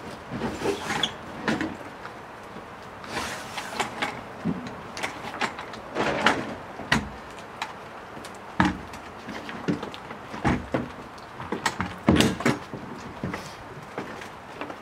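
A wheeled kayak trolley being pulled out from under a kayak and laid on its deck: a string of irregular knocks, clunks and scrapes, some of them sharp.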